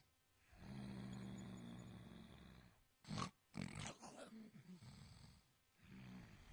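A sleeping kitten snoring: a long low-pitched snore starting about half a second in, then two short sharp snorts around three seconds in, followed by rougher, uneven snoring breaths.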